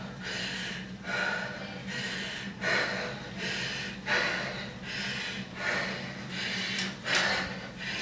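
A woman breathing hard and fast, gasping for air in quick, regular breaths after an all-out sprint on an exercise bike.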